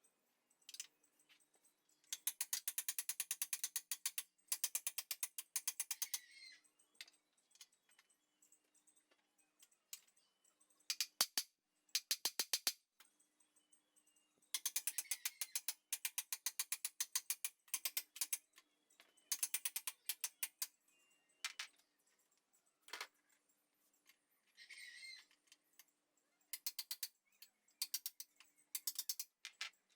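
Bursts of rapid, evenly spaced mechanical clicking, each lasting one to two seconds, repeating with short pauses throughout.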